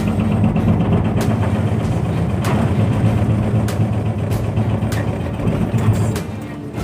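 Backhoe's diesel engine running steadily, with a few sharp knocks, and it drops in level just past six seconds.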